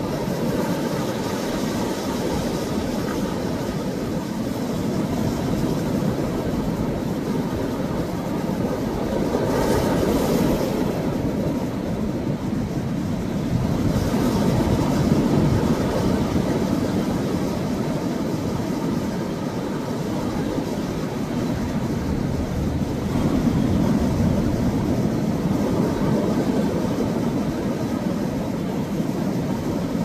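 Sea waves surging and breaking against a rocky shore: a continuous rushing wash that swells louder three times as waves come in.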